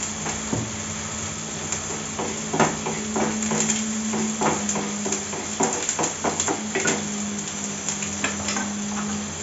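Wooden spatula stirring in a metal kadai, knocking and scraping against the pan in irregular clicks. A steady low hum runs underneath.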